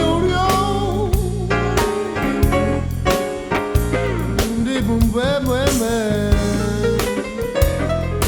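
A blues or soul song with a singing voice over bass and a steady drum beat.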